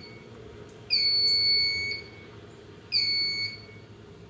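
Notifier fire alarm panel's piezo buzzer sounding a high, steady electronic beep about a second long, repeating every two seconds. One full beep starts about a second in and a shorter one about three seconds in.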